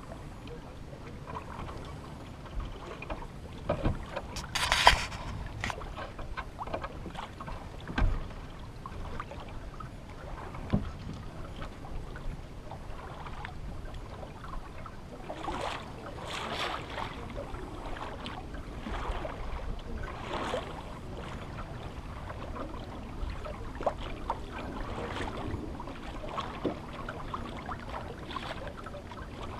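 Water lapping and swishing against the fibreglass hull of a 1964 O'Day Mariner sailing in light air, in repeated surges every second or two in the second half, over a low wind rumble on the microphone. A few sharp knocks on the boat, the loudest about five seconds in and another about eight seconds in.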